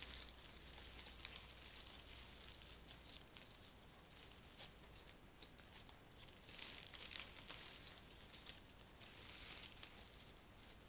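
Faint rustling of a bunch of rose stems and leaves being turned and shifted in the hands, with small ticks as leaves brush together, growing fuller twice in the second half.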